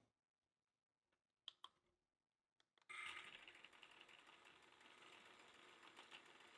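Electric hand mixer starting up about three seconds in and running steadily, its wire beaters whisking whipping cream in a glass bowl. A few faint clicks come just before it.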